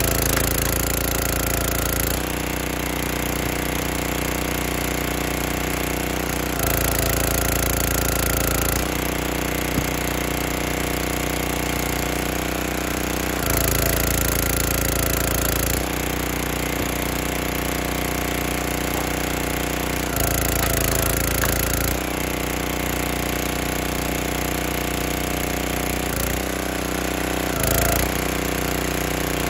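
Performance Pro 32-ton log splitter's small gas engine running steadily, growing louder for a couple of seconds five times as the hydraulic ram splits oak rounds, the engine note dipping under the load each time, with wood cracking.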